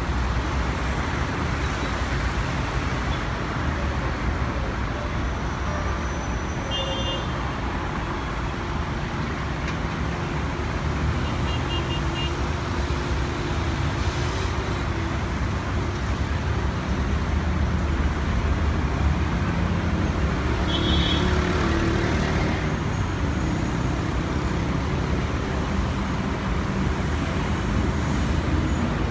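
Steady low rumble of airport noise, from distant jet engines and apron ground vehicles, swelling slightly past the middle. A few faint, brief high-pitched tones sound over it.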